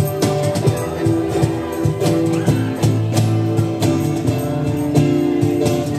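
Acoustic band music amplified through a PA system: strummed acoustic guitar over a bass guitar line, with light hand-percussion strikes and no drum kit.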